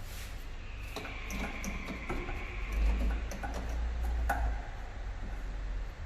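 Hand cleaning and handling noises: scattered light clicks and taps of parts being worked on, with a soft hiss during the first two seconds, over a low rumble.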